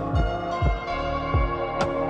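Ambient new-age background music: sustained synth tones over low pulsing bass thumps, with a short bright chime-like strike near the end.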